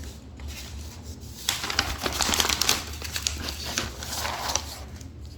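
Toy packaging crinkling and rustling as it is rummaged through and pulled out, with sharp little crackles, starting about a second and a half in and dying away near the end.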